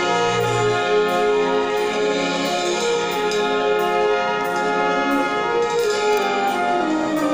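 Brass band playing a slow passage of long held chords, with a line of notes stepping downward near the end.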